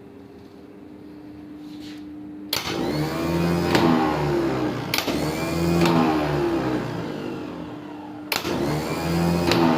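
Volvo truck starter motor run on test: each of three sharp clicks, as it is switched in, sets off a loud whine from the spinning motor whose pitch bends and falls away. A steady low hum comes before the first click, about two and a half seconds in.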